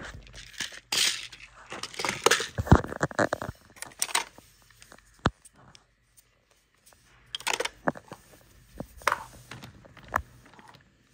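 Hands handling plastic toys: irregular clicks, knocks and rustling, with a pause of about a second and a half in the middle.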